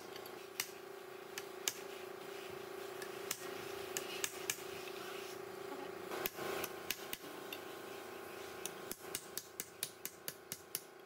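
Sharp metal-on-metal taps of a hand hammer on a steel shaft and drift, fitting a cast-iron bearing housing. Scattered single taps, then a quick run of light taps near the end, over a steady hum.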